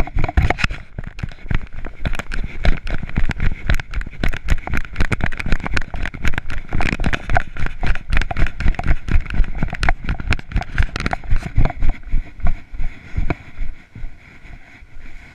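Footsteps and handling noise from a body-worn camera as the wearer walks quickly: a dense, uneven run of thumps and rustles, several a second, that turns quieter near the end.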